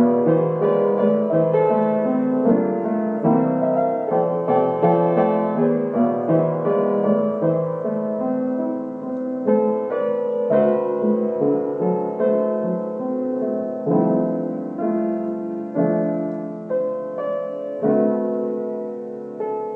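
Solo piano music: a melody of struck notes, each ringing and fading, with the notes spaced further apart toward the end.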